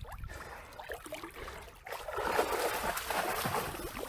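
A rush of water, starting about two seconds in and lasting about two seconds.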